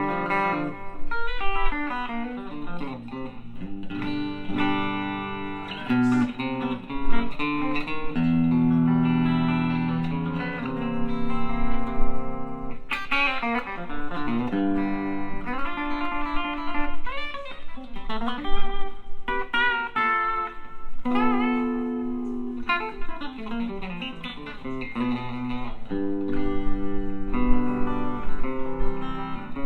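Palir Titan Telecaster electric guitar being played: quick single-note runs with string bends, broken up by a few held chords that ring out.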